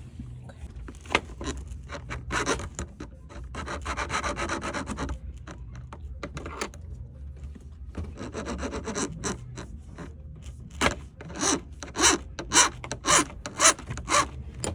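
Repeated rasping, scraping strokes of a skate part being filed or worked by hand. They become regular and louder at about two strokes a second in the second half.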